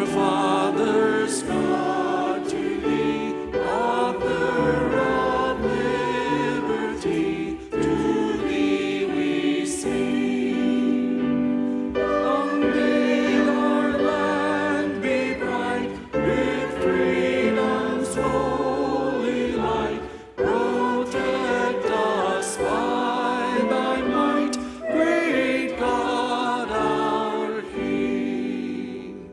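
Church choir singing a hymn, phrase by phrase, with short breaks between lines.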